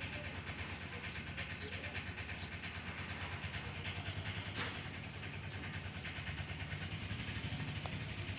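An engine running steadily at idle: a low, even hum with a regular throb.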